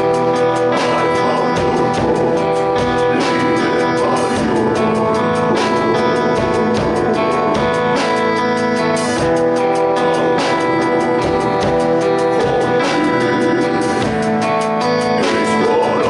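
A band playing a song, with drum-kit hits over guitar and other sustained instruments.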